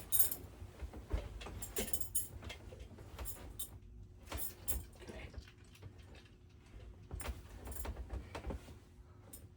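Handling noise: irregular clicks, clinks and rustles, with low bumps and thuds underneath, as objects are picked up and moved about by hand.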